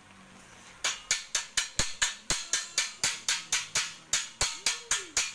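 A fast, even run of sharp knocks or clicks, about four a second, starting about a second in after a brief lull.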